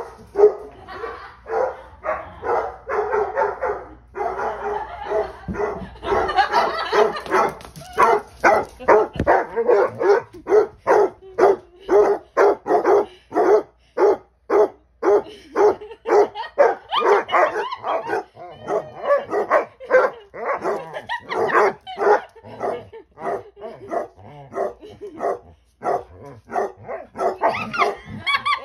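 Two basset hounds barking and baying, their deep calls overlapping at first and then coming as a long run of short barks, about two or three a second.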